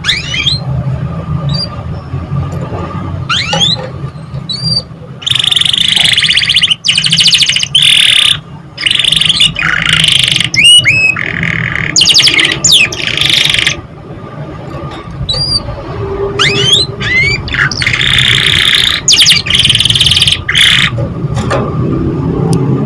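Domestic canary song: quick upward-sweeping chirps and long, rapid rolling trills, in two loud stretches of song, over a steady low hum.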